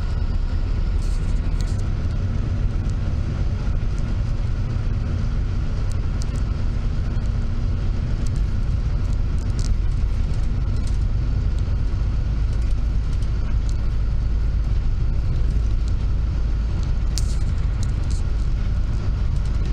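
Steady road noise heard from inside a moving vehicle: a deep, even rumble of engine and tyres, a faint steady whine, and scattered light rattles and clicks.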